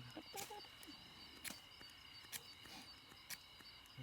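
Faint steady high trilling of insects, with a few faint sharp clicks about a second apart.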